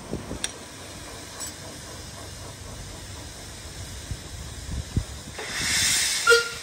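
Steam locomotive letting off a burst of steam: a loud hiss starting about five and a half seconds in and lasting about a second, with a short high tone near its end.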